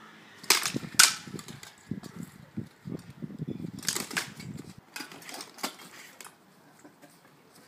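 Sword-sparring strikes: about half a dozen sharp clacks of training swords meeting each other, a buckler and armour, the two loudest near the start, with low scuffling of the fighters' movement between them.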